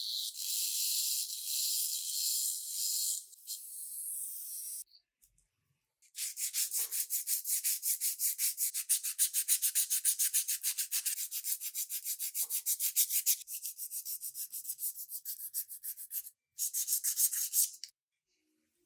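Hand sanding with sandpaper on a small part: quick back-and-forth rubbing strokes, about four to five a second, in three runs with short breaks. Before the strokes, a steady high hiss stops about five seconds in.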